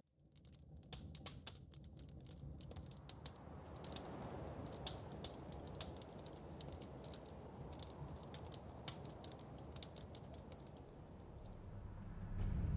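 Campfire crackling faintly: irregular sharp pops and snaps from burning wood, over a steady low rumble.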